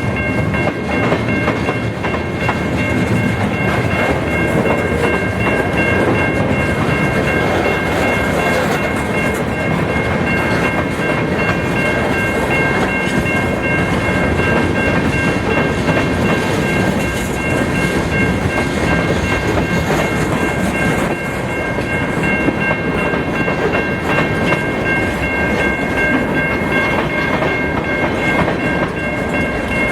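Freight train of empty cars rolling past, the wheels clattering steadily over the rails, with a steady high ringing tone held throughout.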